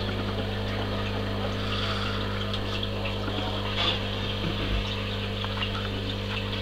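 Aquarium pump running with a steady hum and a low hiss of moving water.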